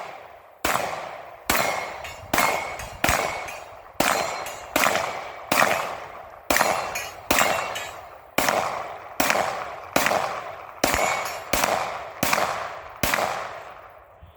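Pistol shots fired one after another at a steady pace, about one or two a second, each report followed by a short echoing tail.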